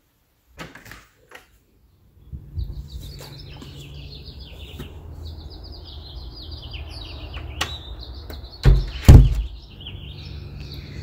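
Small birds twittering and chirping continuously over a steady low rumble of outdoor background, starting about two seconds in. Two loud thumps close together about nine seconds in.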